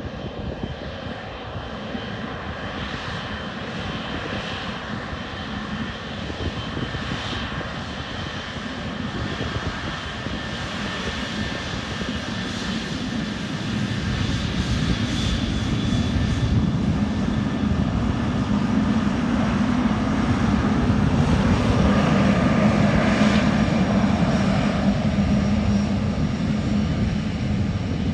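Boeing 777-300ER's twin GE90-115B turbofans at takeoff power as the heavy jet departs. The jet noise with a steady low hum builds gradually, swells sharply about halfway through, and is loudest about three quarters of the way in before easing slightly.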